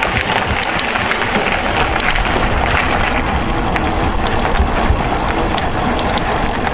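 Mountain bike being ridden over a gravel trail: steady wind rumble on the bike camera's microphone, with the crunch and rattle of tyres and bike, and scattered sharp ticks.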